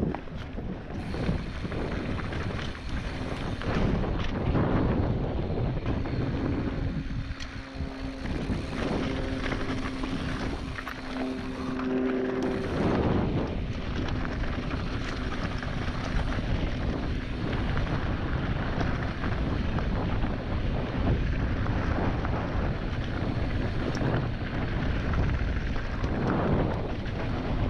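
Mountain bike descending fast over rough, rocky ground: wind rushing over the microphone and the tyres and frame rattling and knocking continuously. A few steady low tones are held for several seconds around the middle.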